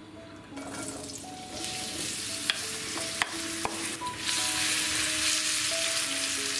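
Diced raw potatoes frying in hot oil in a pan, sizzling as they go in and are stirred with a wooden spatula that knocks against the pan a few times. The sizzle starts about half a second in and grows louder about four seconds in.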